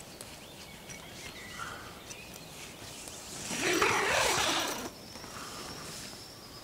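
A tent's door zipper pulled open in one long zip lasting about a second and a half, a little over three seconds in.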